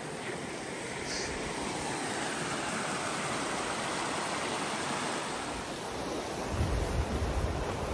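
A small mountain stream rushing over rocks: a steady hiss of running water. From about six and a half seconds in, wind buffets the microphone in low rumbles.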